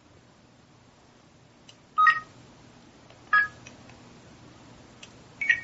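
Samsung SC-MX10 camcorder's electronic key beeps as its buttons are pressed to work the menu: three short two-tone beeps, about two seconds in, a second and a half later, and near the end, with faint button clicks between.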